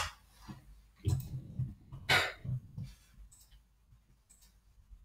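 Faint breath and a few soft clicks and low thumps, with quiet room tone between them.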